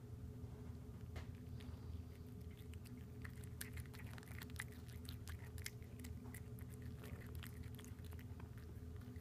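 Domestic cat chewing on a freshly caught southern flying squirrel: a run of faint, quick, irregular clicks, densest from about three to eight seconds in. A steady low hum runs underneath.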